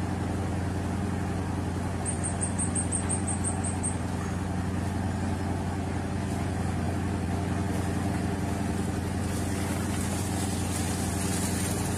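A ship's engine running with a steady low hum. About two seconds in, a quick run of about ten short high beeps lasts for two seconds.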